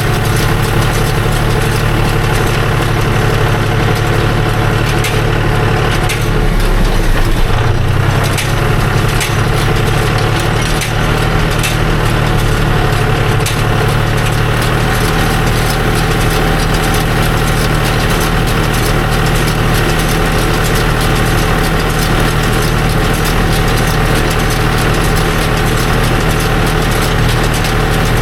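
Farm tractor engine running steadily under light work, with a short rise in level and a small shift in its pitch about seven seconds in.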